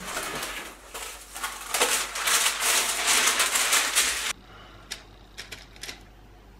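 Baking paper crinkling and rustling as a sheet is spread over a baking tray. The crackle stops suddenly about four seconds in, followed by a few soft taps of a spoon setting cookie dough on the paper.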